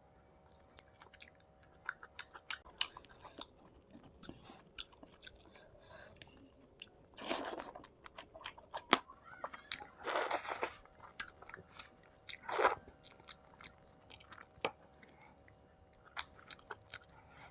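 A person chewing food close to the microphone, with frequent wet mouth clicks and three louder crunchy bites about 7, 10 and 12.5 seconds in.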